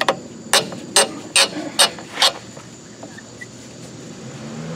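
Ratcheting nut driver clicking as it turns a bolt out of a snowblower engine's sheet-metal shroud. There are six sharp clicks about half a second apart, and they stop about two and a half seconds in.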